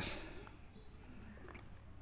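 Quiet background with one or two faint light clicks about a second and a half in.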